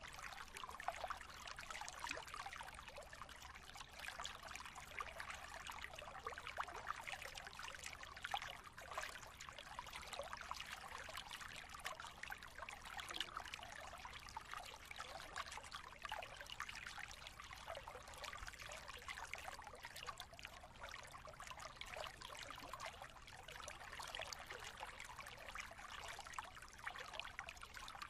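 Quiet, steady sound of running water, like a trickling stream.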